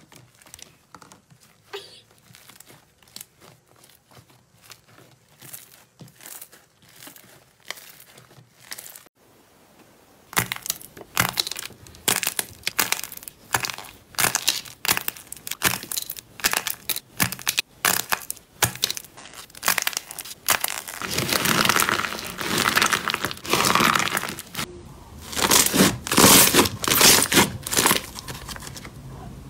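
Slime and soft clay being squeezed, pulled and torn by hand, close to the microphone: dense crackling, squishing and popping. The sounds grow much louder about ten seconds in, when the material changes.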